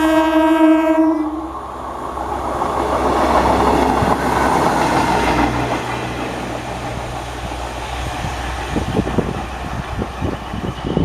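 EMU electric train sounding one steady horn note that cuts off about a second in, followed by the rush of the train running past and, over the last few seconds, its wheels clattering over rail joints.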